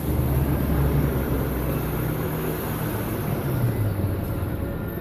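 Street traffic noise: a motor vehicle's engine rumbling nearby, easing off about halfway through.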